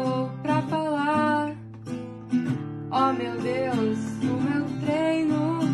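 Acoustic guitar strummed in chords, with a voice singing a wordless, wavering melody over it.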